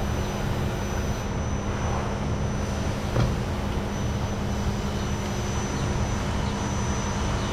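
A steady mechanical drone with a constant low hum, and a single short click about three seconds in.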